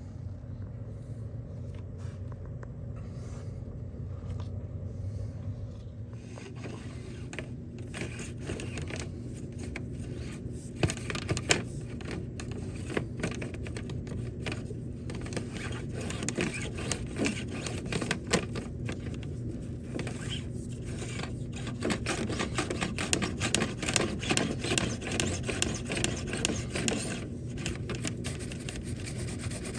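Drill-driven rotary brush on a rod scraping and rattling inside a metal dryer vent duct, loosening lint, over a steady low hum. The scraping starts about six seconds in and goes on with irregular knocks.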